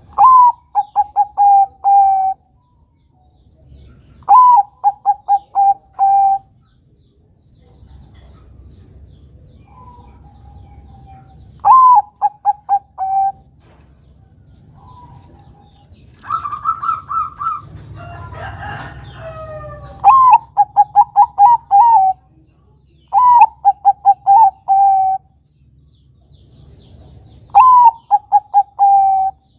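Zebra dove (perkutut, Bangkok type) singing: six phrases a few seconds apart, each opening on a higher note and dropping into a rapid run of short coos. Near the middle, a different, longer call with a sliding tail cuts in.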